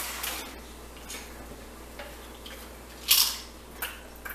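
Quiet eating and drinking sounds at a table: soft clicks and taps of a plate and a soda can being handled, with one louder short noise about three seconds in.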